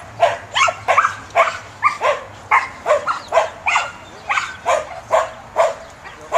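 Samoyed barking in a rapid, steady string of sharp, high barks, about two to three a second.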